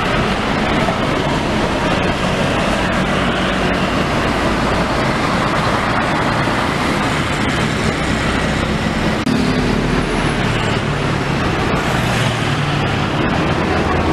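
Steady road traffic: a coach bus's diesel engine as it pulls out onto the road, with cars and motorbikes passing.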